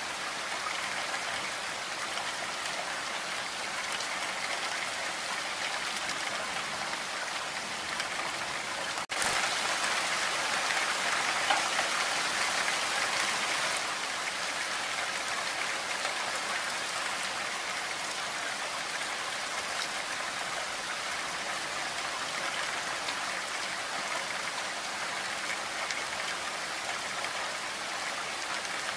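Heavy rain falling, a steady even hiss. It cuts out briefly about nine seconds in and comes back a little louder for a few seconds.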